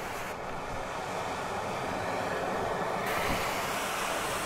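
Rough storm surf breaking on a beach, a steady rush of waves mixed with strong wind buffeting the microphone.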